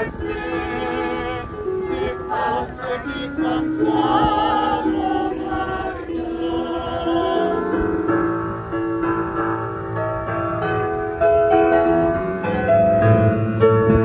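A church choir singing in parts, with long held notes that waver slightly. Near the end the singing gets louder and fuller, with low notes joining in.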